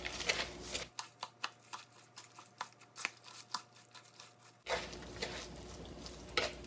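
Wooden chopsticks tossing a dressed seaweed and cabbage salad in a plastic mixing bowl: irregular light clicks and taps against the bowl, several a second, with a soft rustle of the leaves.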